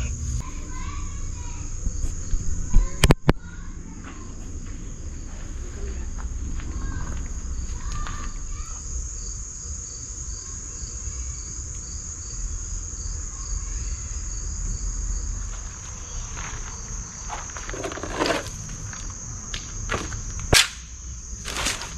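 Crickets trilling, one steady high-pitched drone with a faint regular pulse, over a low rumble. Sharp knocks come about three seconds in, and a few clinks near the end.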